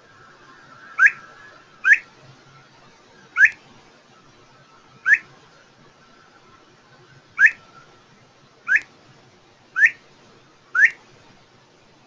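Recorded call of a mountain plover: eight short whistled notes, each sweeping sharply upward, spaced one to two seconds apart irregularly, with a faint steady tone between them.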